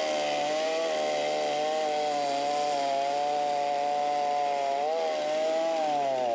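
Petrol chainsaw fitted with a carving bar, running at high revs. Its pitch sags and recovers a few times, most clearly near the end, as the chain bites into and clears the wood.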